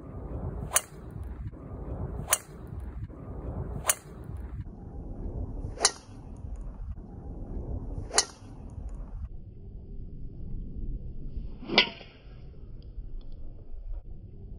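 Six sharp clicks of golf drivers striking balls, spaced unevenly one to four seconds apart, over a steady outdoor background noise. The last, about twelve seconds in, is duller and lower than the rest.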